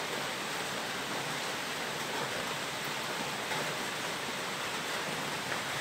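Steady, even hiss of background noise, with no distinct sound standing out.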